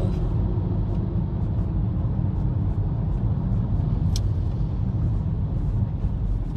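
Steady low rumble of vehicle noise, with a single brief click about four seconds in.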